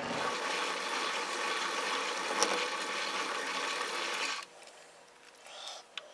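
Metal lathe running with its spindle and chuck turning, driven without the back gear, then cut off suddenly about four and a half seconds in; a sharp click near the end.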